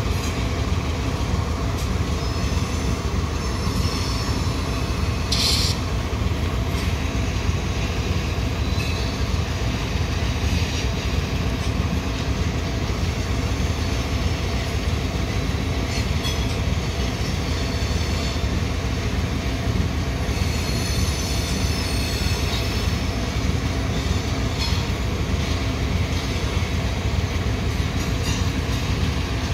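Loaded coal hopper cars rolling past with a steady low rumble. Wheels squeal in thin high tones a few seconds in and again around twenty seconds in, and there is a sharp clank about five and a half seconds in.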